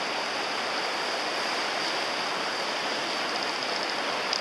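Steady rushing of river water flowing over a stony bed, an even hiss with no breaks.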